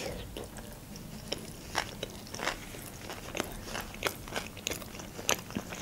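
Close-miked chewing of a mouthful of sushi roll, with soft wet clicks of the mouth coming at irregular intervals.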